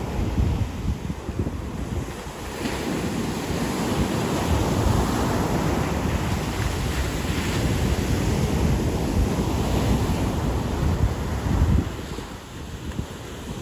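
Ocean surf washing onto a beach, a steady rush of breaking waves that swells a couple of seconds in and eases near the end, with wind buffeting the microphone in low rumbles.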